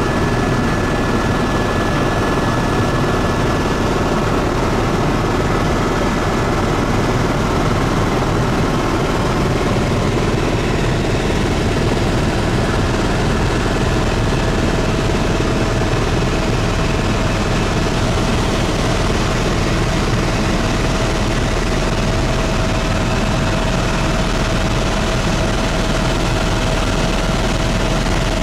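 Helicopter cabin noise in level flight: a steady, loud drone of rotor and engine. A faint steady whine rides on top of it.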